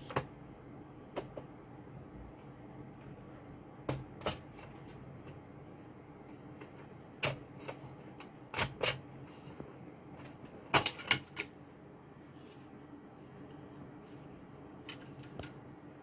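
Plastic clicks and knocks of an Acer Aspire ES1-531 laptop's removable battery pack being unlatched and slid out of the case. The clicks come irregularly, a dozen or so, with a cluster of louder ones about eleven seconds in.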